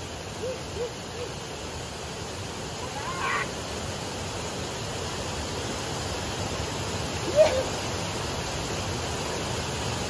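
Steady rush of river water pouring over rocks in a small cascade, growing slightly louder, with a few brief voice-like calls: faint ones about half a second in and near three seconds, a louder one at about seven and a half seconds.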